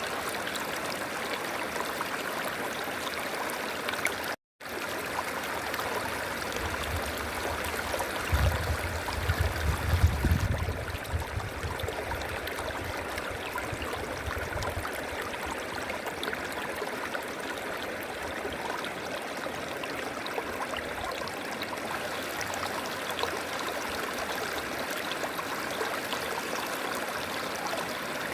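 A river flowing in a steady rush of water. The sound cuts out for a moment about four seconds in, and a low rumble swells and fades underneath it between about six and twelve seconds in.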